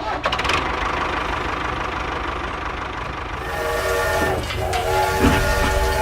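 A steady mechanical rumble, then from about three and a half seconds a horn sounding a chord of several notes in long blasts with short breaks.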